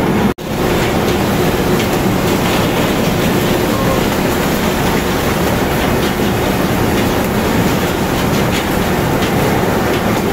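Tuna boat's fish conveyor running with a steady mechanical rattle as tuna slide down a metal chute and splash into a hold of chilled water. The sound drops out for a moment about half a second in.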